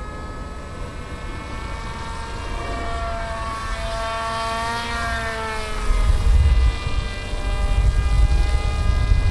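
RC model plane's motor and propeller whining overhead as a steady pitched drone; the pitch rises and then falls about five seconds in as the plane passes. From about six seconds in, a loud low rumble on the microphone joins it.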